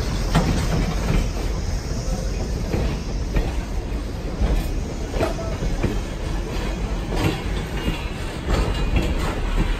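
A train of cabooses rolling slowly past at close range: a low rumble of steel wheels on rail, with irregular knocks and clicks as the trucks pass over rail joints, and a faint high wheel squeal later on.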